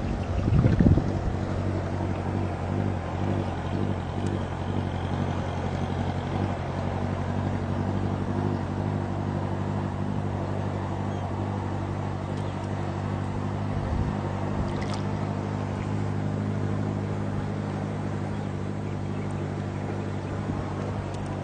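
A small engine running steadily at an even speed. There is a louder low bump about a second in.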